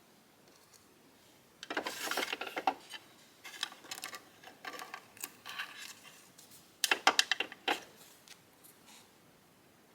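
Small objects being handled on a work surface: rubbing, clicking and clattering in two bursts, about two seconds in and again about seven seconds in, with scattered ticks and rustles between.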